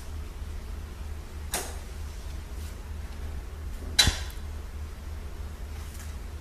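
Handling and wiping noises as the pipe ends are cleaned: a couple of short rubbing sounds and a sharp knock about four seconds in, over a steady low hum.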